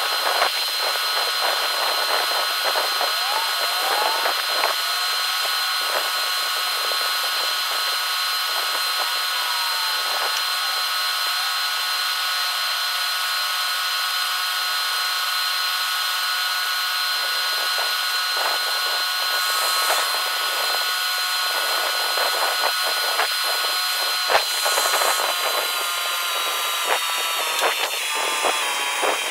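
Kubota M4-071 tractor's turbo diesel held at about 2200 RPM with a steady high whine during a DPF regeneration, together with the dump trailer's hydraulic pump raising the bed. Near the end the whine drops in pitch in small steps.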